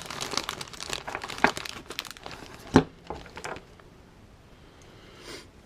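Plastic packaging crinkling and crackling as the Flojet replacement switch kit is handled, with one sharp snap about three seconds in; the crackling stops after about three and a half seconds.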